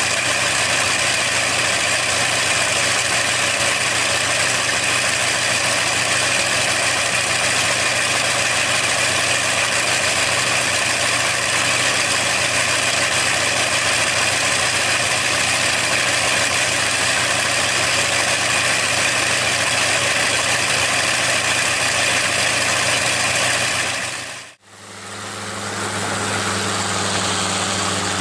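Bristol Hercules fourteen-cylinder radial aircraft engine running steadily on a test-stand trailer with its propeller turning. The sound is loud and even. Near the end it drops out for a moment, then an engine runs on with a lower, steadier note.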